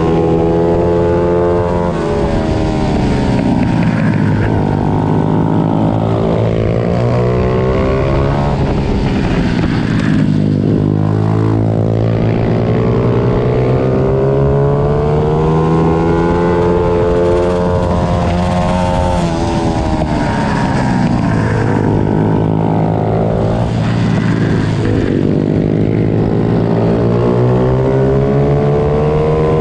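Several racing pit bikes' small engines, revving hard with the pitch climbing and dropping again and again through gear changes and corners, their notes overlapping as the bikes pass.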